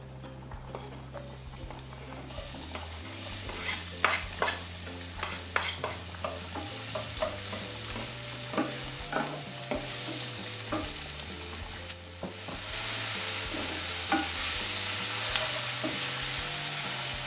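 Chopped onion sizzling in hot oil in a nonstick wok while a wooden spatula stirs it, tapping and scraping against the pan. The sizzle starts about two seconds in and gets louder about two-thirds of the way through.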